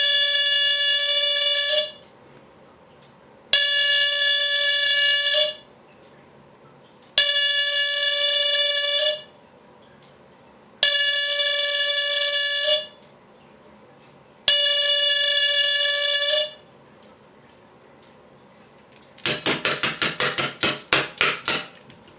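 An old Westclox smoke alarm going off after being set off with a lighter: five long buzzing horn blasts of about two seconds each, with pauses of about the same length between them. Near the end comes a rapid run of short, crackling pulses.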